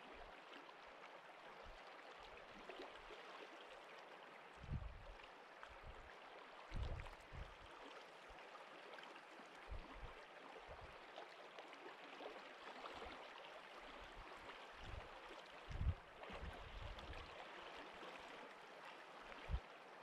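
Faint, steady rush of flowing river water, broken by a few brief low thumps, like wind or handling knocks on the microphone.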